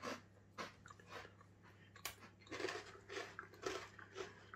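A person chewing a mini red bean cracker with the mouth closed, giving faint crunching chews about twice a second.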